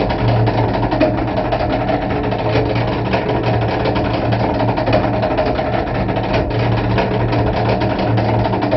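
Filter-cleaning mechanism of a Floorex DM-1360 dust extractor running with the suction motor off: a small motor hums steadily while its two rotating fingers strike the inside of the cartridge filter's pleats in a dense, rapid clatter of clicks, shaking the dust off the filter.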